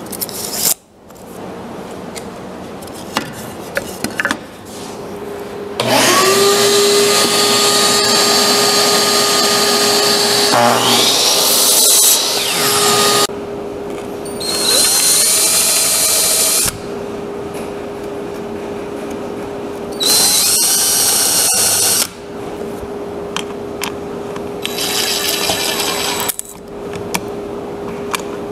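A miter saw runs for about seven seconds cutting a cedar board. Then a cordless impact driver fitted with a countersink bit drills into cedar in three short bursts, each spinning up with a rising whine, over a steady hum.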